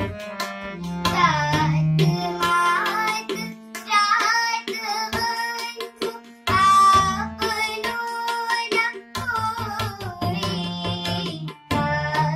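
A girl singing a Hindi devotional bhajan in phrases, accompanied by harmonium chords held under the voice and tabla strokes keeping the rhythm.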